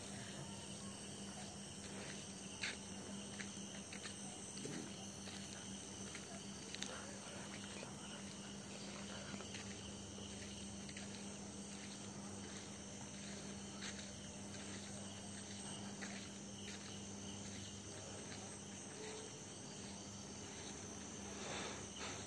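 Night insects trilling steadily in the background, over a low steady hum, with a few faint clicks.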